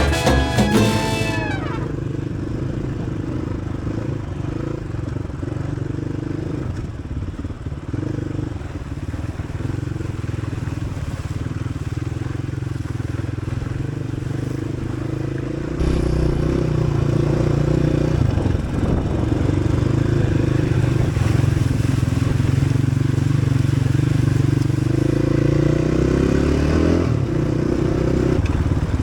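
Dirt bike engine running steadily while riding. About halfway through it gets louder and fuller, and near the end the engine pitch rises as it revs up.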